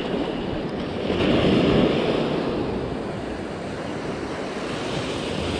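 Small sea waves breaking and washing up a sandy beach, with wind on the microphone; one wave surges louder about a second in.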